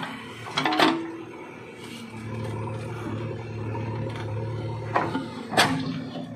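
JCB 3DX backhoe loader digging a trench. Its diesel engine runs with a steady low hum from about two seconds in. Sharp knocks from the digging come once about a second in and twice near the end.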